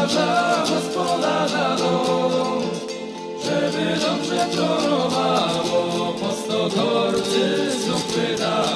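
Background music: a group of voices singing a folk-style song over rhythmic instrumental accompaniment, with a brief dip a few seconds in.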